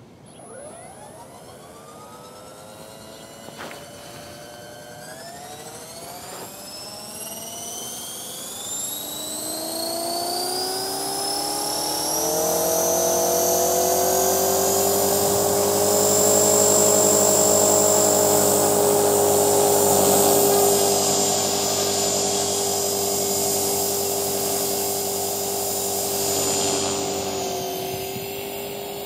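Electric 450-size RC helicopter spooling up: the motor and rotor whine rises slowly in pitch and grows louder for about twelve seconds, then holds steady at head speed. The rotor carries unweighted Smartmodel scale blades.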